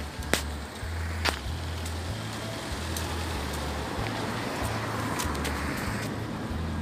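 Street noise: a steady hiss over a low rumble, with two sharp clicks about a second apart near the start.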